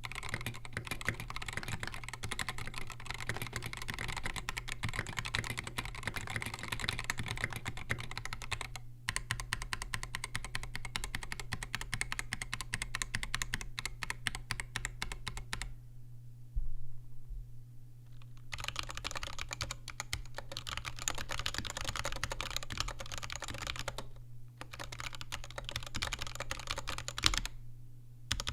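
Fast typing on Mark: 65 gasket-mount 65% mechanical keyboards fitted with L2 linear switches, comparing an aluminum plate with an FR4 plate. A run of keystrokes pauses for about two seconds around the middle, then typing resumes on the other board with brief breaks near the end. A steady low hum sits beneath it.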